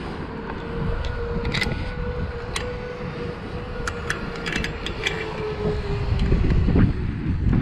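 A steady whine that rises slightly and then falls away, fading out about six seconds in, with scattered sharp clicks and a low wind rumble on the microphone that grows louder near the end.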